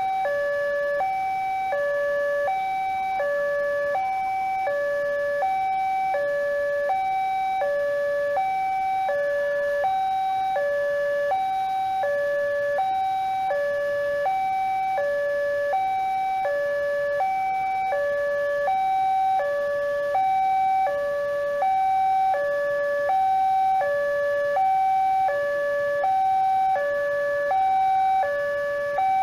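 Electronic two-tone warning alarm of an Indonesian railway level-crossing signal, sounding from its horn loudspeaker: a high and a low tone alternate steadily, about one high-low cycle a second. The alarm warns that a train is approaching.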